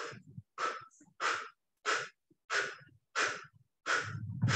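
A woman's short, forceful exhalations, about eight in a steady rhythm, roughly one every two-thirds of a second. This is Pilates percussive breathing, paced to small pulsing arm movements.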